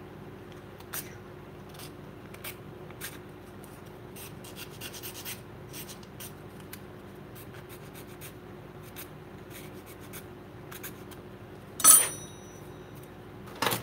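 Metal hand file scraping in short, light strokes across a red plastic toy blaster part. About twelve seconds in, a metal tool clatters down onto the workbench with a brief ring, followed by another knock near the end.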